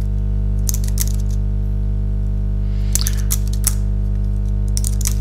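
Computer keyboard typing in three short bursts of keystrokes, over a loud, steady electrical mains hum on the recording.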